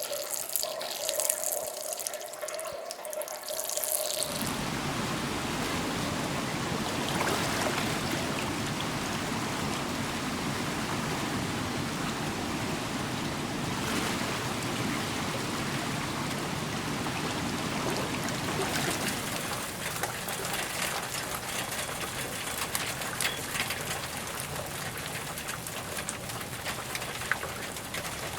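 Recorded running water in several takes: light splashing over a faint steady tone for about four seconds, then a steady, full rush of flowing water that becomes a thinner, crackling trickle about two-thirds of the way through.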